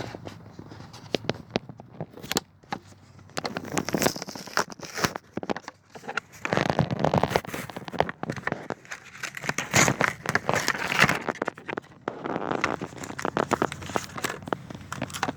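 Plastic blister packaging and trading-card pack wrappers crinkling and tearing as they are opened by hand, with many sharp irregular crackles, busier in the second half.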